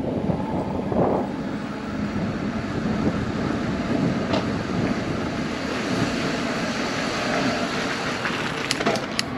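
Steady rushing road noise of car traffic, heard while riding an e-bike along the road. A few sharp clicks near the end.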